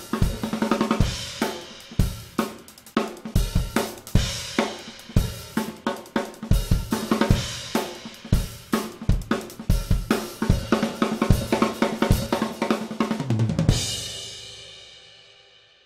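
Drum kit playing a groove that features a Sonor Select Force 14x6.5 snare drum fitted with custom wood hoops, along with bass drum, hi-hat and cymbals. It ends on a final hit about two seconds before the end, and the cymbal ring fades away.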